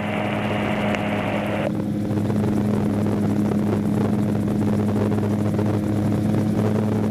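AutoGyro MTO Sport gyroplane in flight, heard from its open cockpit: the engine and pusher propeller drone steadily at an even pitch. A higher hiss over the drone cuts off suddenly under two seconds in.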